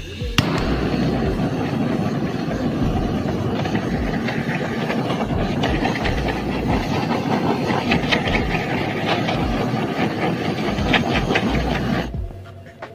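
Handheld gas blowtorch running steadily with a loud hissing jet as its flame plays over a scooter carburetor. It starts with a sharp click and cuts off about a second before the end.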